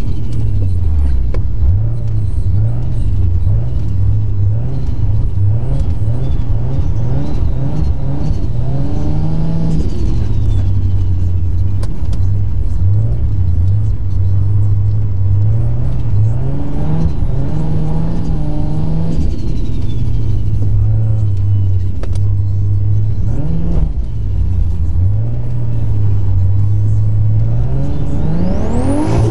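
In-cabin sound of a single-turbo Toyota 2JZ-GTE inline-six pulling the car along. The engine note climbs and drops in steps through the gears, with a faint falling whistle after some of the climbs and a sharp rising-then-falling sweep right at the end.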